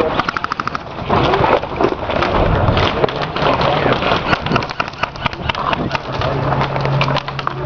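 Airsoft guns firing in rapid bursts: a fast rattle of shots, roughly a dozen a second, near the start and again around the middle, over steady rustling noise.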